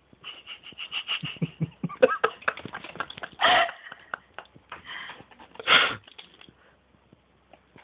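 Scuffling and quick light clicks of a cat batting a small toy about on a wooden floor from under a recliner, with two louder short bursts of noise about three and a half and six seconds in.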